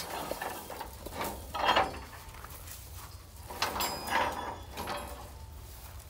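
Metal frame scaffolding squeaking and scraping twice as a leg is adjusted to bring the frame up about half an inch for level.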